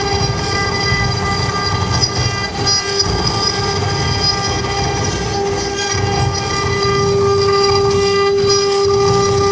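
CNC router running: a steady whine that grows a little louder in the second half, over an uneven low rumble.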